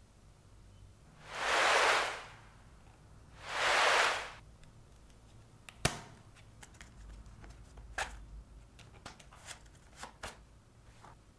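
Two loud rushing hisses, each about a second long, then a sharp click as a knife slits open a cardboard screen-protector box, followed by light clicks and rustles of cardboard and clear plastic packaging being handled.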